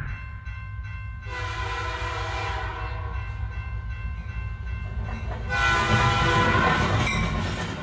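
A steady low rumble with two long horn-like chords over it, the first about a second in and the second, louder one near the end.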